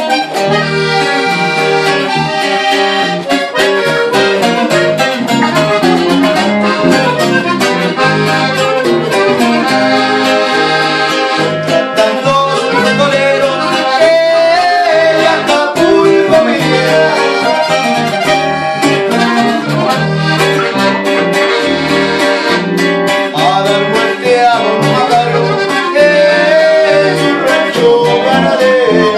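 Norteño music played live: a button accordion leads over a strummed twelve-string bajo sexto and an electric bass, with a man singing.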